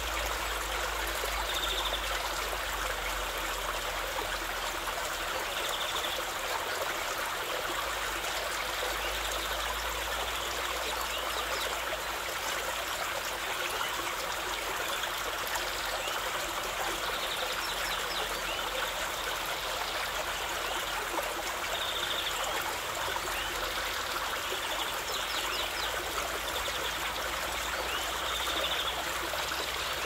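Small waterfall cascading down a rock face: a steady, even rush and splash of falling water.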